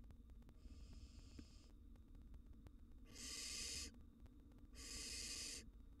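Barn owl giving rasping hisses: a faint one near the start, then two loud ones about a second and a half apart, each just under a second long.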